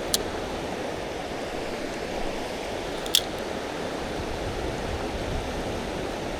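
Steady rush of river water flowing past, with two short sharp clicks, one just after the start and a louder one about three seconds in.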